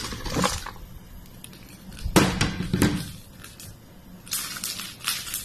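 Chopped cabbage being put into a pot of chicken broth: a few sharp clinks and knocks against the pot, then a stretch of rustling, squishing noise near the end.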